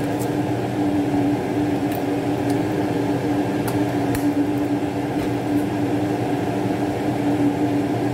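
Steady mechanical hum of a running fan or appliance motor, with one strong steady tone through it, and a few faint light clicks.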